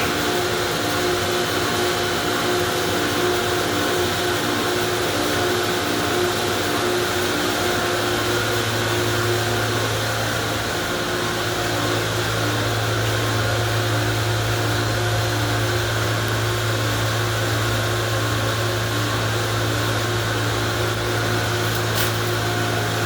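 Car wash machinery running steadily: a constant hiss and whir of pumps and motors with several steady motor tones. A deeper hum joins about eight seconds in.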